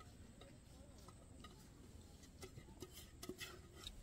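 Near silence with a few faint clicks and taps from people eating by hand from steel bowls.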